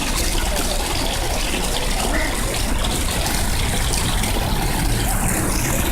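Steady rushing and splashing of running water, as from a fountain or water feature.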